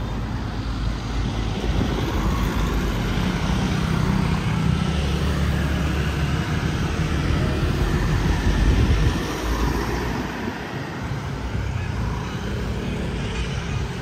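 Motor traffic going by, with a low engine rumble that swells and falls away about nine or ten seconds in as a vehicle passes.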